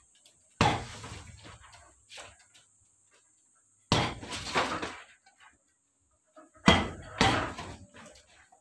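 Gloved punches landing on a hanging punching bag: a single smack about half a second in, then a pair of smacks around four seconds in and another pair around seven seconds in, each dying away over about a second.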